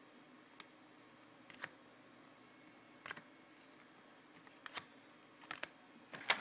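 Trading cards being flipped through one by one: short, faint slides and clicks of card against card about every second or so, with a sharper snap near the end.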